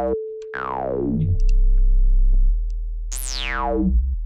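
Square-wave synth bass played through a resonant band-pass filter in Renoise, making a squelchy "ow". On each note an envelope sweeps the resonant peak quickly downward. One note comes about half a second in and holds low. A second comes near the end, its peak gliding briefly up before falling.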